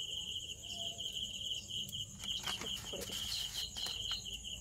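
Paper rustling and crinkling as it is folded around a rolled paratha, with a few sharp crackles between about two and four seconds in, over a cricket's steady pulsing chirp.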